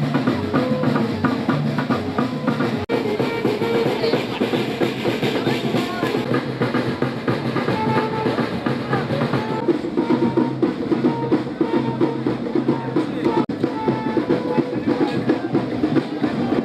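Background music with drums and a steady beat, cutting out briefly twice.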